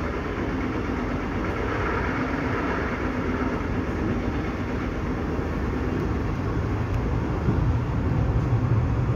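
Steady rumble and rolling noise of a moving passenger train, heard from inside the carriage. The low rumble grows a little louder near the end.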